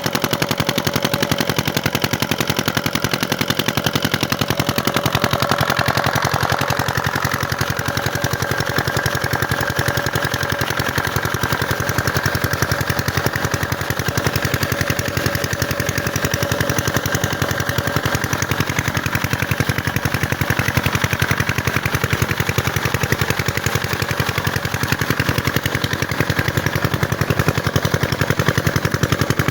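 Single-cylinder 8.5 hp diesel engine of a water-pump set running steadily, with a fast, even knocking beat throughout.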